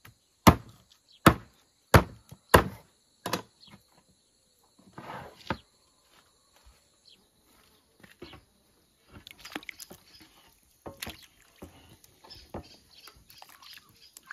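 Meat cleaver chopping a whole raw chicken on a wooden cutting board: five heavy chops about two-thirds of a second apart, followed by quieter knocks and handling sounds.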